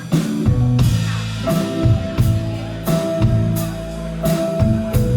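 Live band playing an instrumental passage of an indie pop song: a steady drum-kit beat with bass guitar notes and guitar, with a sustained higher note entering about a second and a half in.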